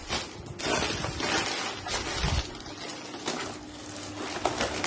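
Gift wrapping paper and plastic packaging rustling and crinkling as presents are handled and unwrapped.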